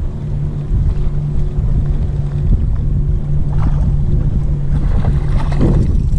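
Wind rumbling on the microphone over the steady low hum of a bass boat's motor, with a few faint rustles late on.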